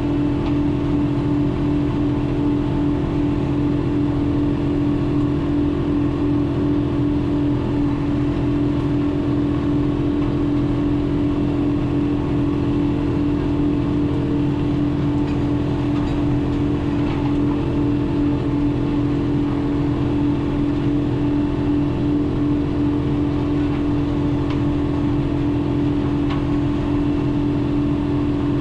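John Deere 4066R compact tractor's diesel engine running steadily under load, driving a flail mower that chews through grass and brush. A loud, even hum that holds its pitch throughout.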